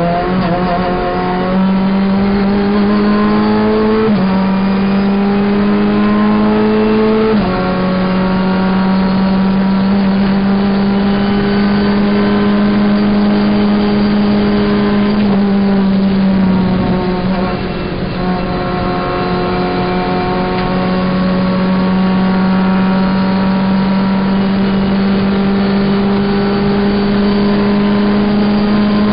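Renault Clio Cup race car's four-cylinder engine heard from inside the cabin, pulling hard through the gears: it climbs in pitch, drops sharply with two quick upshifts in the first eight seconds, then runs high and steady in top gear. A little past halfway the engine note dips briefly as the throttle is eased, then rises and holds again.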